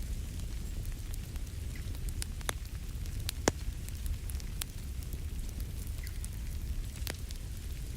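Wood fire crackling in a fireplace over a steady low rumble, with sharp pops scattered throughout, the loudest about three and a half seconds in.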